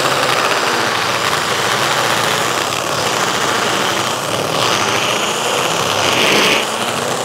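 Mollar MLR-CID20500-U cordless impact drill running without a break in second speed, hammer-drilling a 20 mm masonry bit into a concrete block. A steady, loud rattle and grind that gets a little louder about six seconds in.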